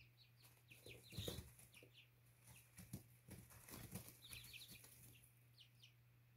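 Young chicks fighting: wings flapping and bodies scuffling in short bursts, about a second in and again from about three to four seconds in, with short high peeps throughout.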